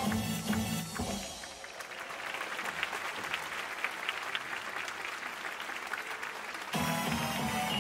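Audience applauding, many sharp claps over a steady hiss, in the gap after the music stops about a second in; the music starts again near the end.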